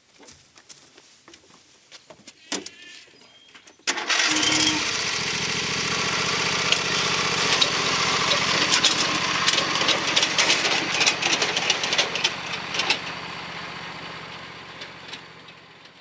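A John Deere riding lawn tractor's engine starts suddenly about four seconds in, after a few faint clicks, and runs steadily, then fades gradually near the end as the tractor drives away.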